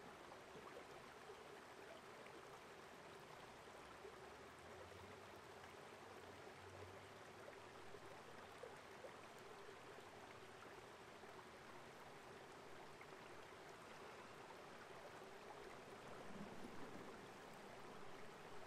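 Faint, steady trickle of a small woodland creek.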